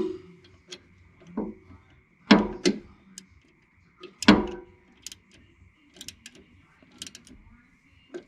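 Ratchet wrench clicking in short strokes as the bolts of a hydraulic tank's return-filter cover plate are snugged down, with a few louder metallic knocks from the tool in the first half. The clicks come in quick pairs about once a second.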